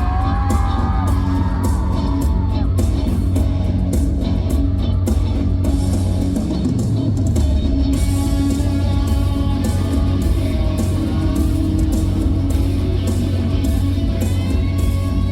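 Live pop-rock band music playing at a steady level, with electric guitar over bass and drum kit.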